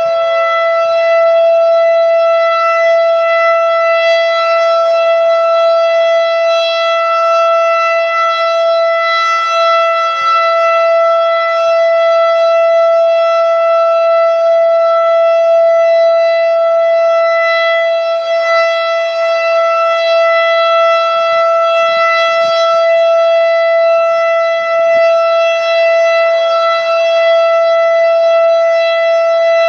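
STH-10A outdoor warning siren sounding a loud, steady tone that holds one pitch throughout, without rising or falling.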